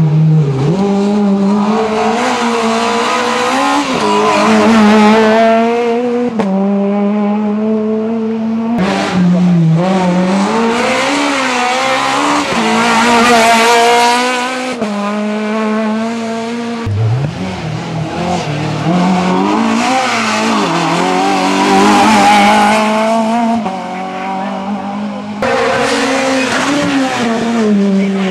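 Citroën C2 R2 rally car engines revving hard and rising in pitch through the gears as the cars pass at speed, in several passes one after another.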